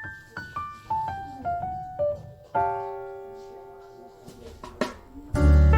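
Background music: a piano plays single notes in a falling line, holds a chord that slowly fades about halfway through, and a low bass line comes in near the end.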